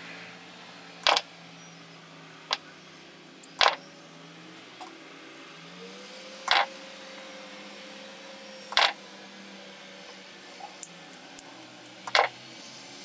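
Metal pliers clicking against fine wire as it is bent into a screw lock: about six short, sharp clicks at irregular intervals, with a few fainter ticks between them. A faint steady hum sits underneath.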